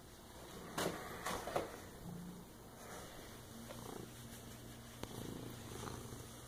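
Domestic cat purring close to the microphone, a steady low rumble. About a second in there are three brief scuffing noises, the loudest sounds here.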